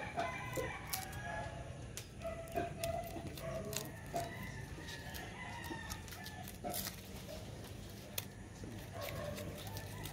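Chickens clucking in the background, with intermittent sharp taps of a knife on a wooden chopping board as garlic cloves are peeled.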